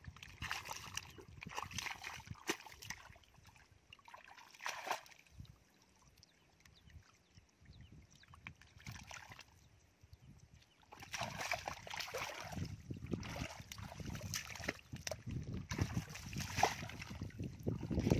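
Irregular sloshing, splashing and squelching of bare feet and hands working in shallow muddy water. A quieter stretch runs through the middle, then the sloshing picks up again about eleven seconds in.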